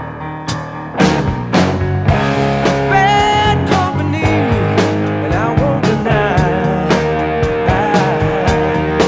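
Rock music with a steady drum beat, guitar and singing.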